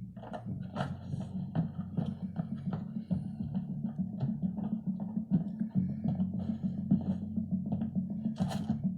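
Background music: plucked string notes repeating over a steady low tone.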